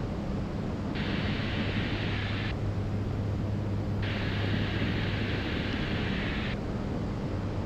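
Steady drone of a Diamond DA62's twin turbodiesel engines and propellers in cruise. Twice, about a second in and again about four seconds in, a stretch of radio hiss cuts in and then stops abruptly; the first lasts about a second and a half, the second about two and a half seconds.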